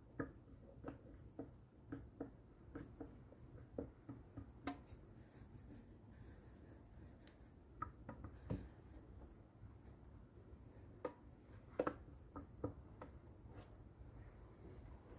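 Scattered light taps, clicks and knocks of hands handling small parts and tools on a workbench, irregular, with the loudest knock about twelve seconds in, over a steady low hum.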